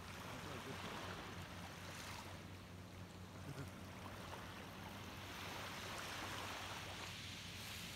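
Small, gentle waves lapping and washing up onto a sandy beach: a soft hiss that swells about a second in and again for a longer stretch toward the end.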